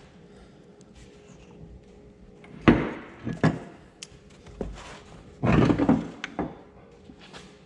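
An aluminium engine piston being handled and turned over on a metal workbench: a sharp clunk, a couple more knocks over the next two seconds, then a longer scraping clatter as it is shifted across the bench.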